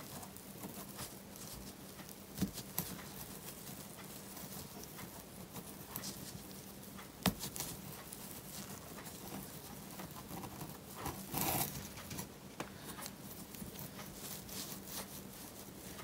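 Soft rustling and scratching of jute twine being worked over a rope with a crochet hook in single crochet, with scattered small clicks and a louder rustle about eleven seconds in.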